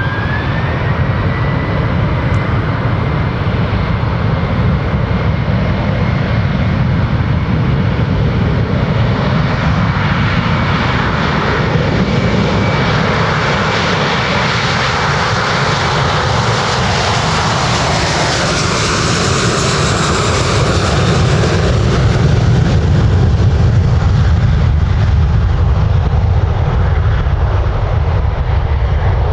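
Airbus A321-231's twin IAE V2500 turbofan engines at takeoff power through the takeoff roll and climb-out: a steady jet roar with a high whine that fades out about halfway. The roar swells and is loudest in the second half as the aircraft passes and lifts off.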